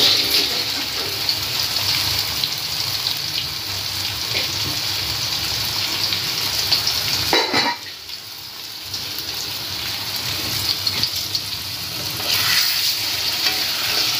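Marinated chicken pieces sizzling as they shallow-fry in hot oil in a kadai: a steady frying hiss, broken briefly about halfway through.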